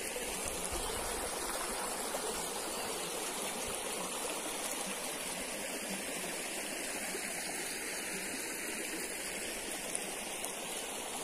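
Small shallow creek flowing, a steady trickle and babble of water.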